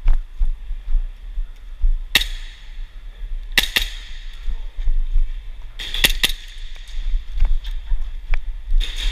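Airsoft guns firing: single sharp cracks, a quick cluster of shots about six seconds in and more shots near the end, echoing briefly, over a constant low rumble.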